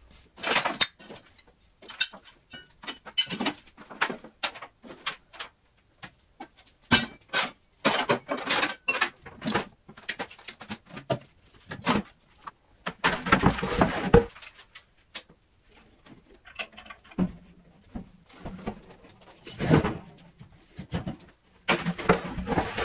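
Irregular knocks, clanks and scrapes of metal tools and objects being picked up, set down and moved, with a few longer stretches of rattling and scraping.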